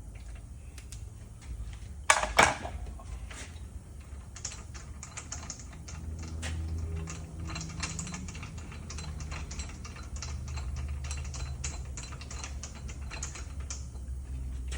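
Ratchet wrench clicking in quick runs while a ball joint press screw is worked loose, after two sharp metal clanks about two seconds in, over a low steady hum.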